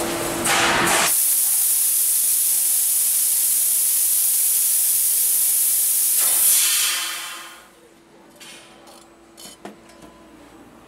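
Fiber laser tube cutter cutting a stainless steel tube, a steady high-pitched hiss of the gas jet from the cutting head. The hiss dies away about seven seconds in, followed by a few faint clicks.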